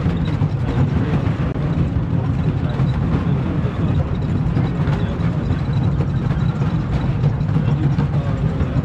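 Scenic Railway wooden roller coaster train rolling along its track: a steady low rumble of the wheels on the rails.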